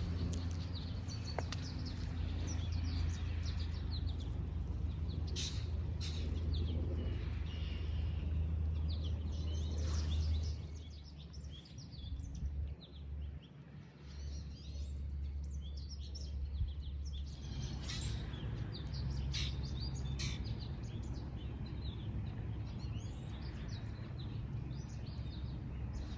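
Songbirds chirping and singing, many short calls overlapping throughout, over a steady low rumble that drops away for several seconds midway.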